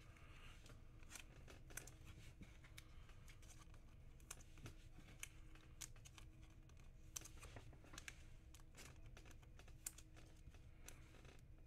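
Near silence with faint rustling and scattered light clicks of trading cards and foil packs being handled, over a faint steady room hum.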